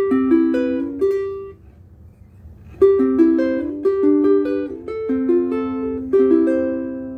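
Ukulele played fingerstyle: a short phrase of plucked notes, a brief pause, then a longer melodic phrase whose last notes are left to ring out.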